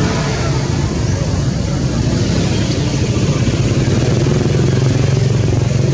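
Steady low hum of an engine running, its level even and growing slightly stronger in the second half.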